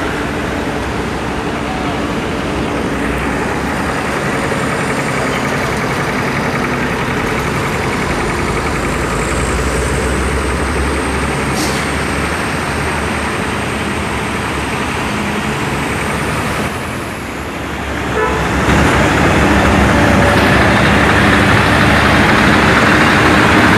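Heavy truck diesel engine running steadily, with the rumble of a slow-moving heavy multi-axle trailer. About three-quarters of the way through, the sound drops briefly and then comes back louder.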